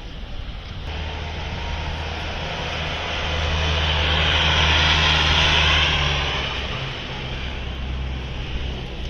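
A large vehicle driving past: a low steady engine hum with a hiss over it that swells to a peak about five seconds in and then fades.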